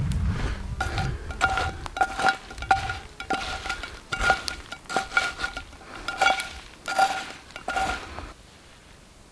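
Metal utensil clinking repeatedly against a metal cooking pot, about twice a second, each strike leaving a short ring. It stops about eight seconds in.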